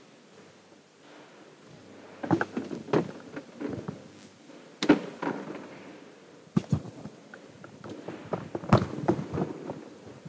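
Irregular knocks and thumps with rustling in between, the sharpest about five seconds in and again near nine seconds.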